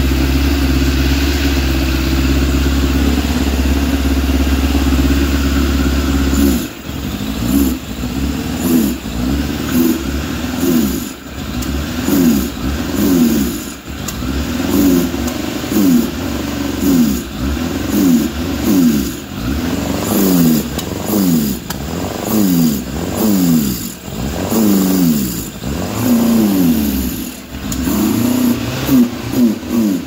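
Suzuki GSF600 Bandit's carbureted inline-four engine idling steadily, then from about six seconds in revved repeatedly, about once a second, each rev rising and falling back. It now takes the throttle cleanly, which the owner takes to mean the suspected vacuum leak at the intake boots has sealed itself.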